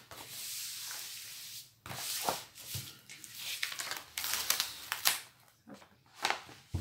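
Plastic protective film being laid and pressed back onto the sticky diamond painting canvas: irregular crinkling and rustling with short sharp crackles.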